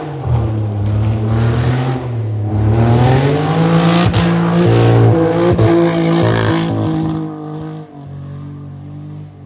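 Car engine revving hard under load, its pitch rising and falling. It is loudest in the middle and drops back about eight seconds in.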